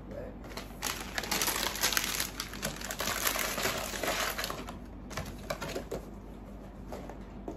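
Plastic packaging being crumpled and handled, a rapid crackling crinkle that starts about a second in and dies down after about six seconds.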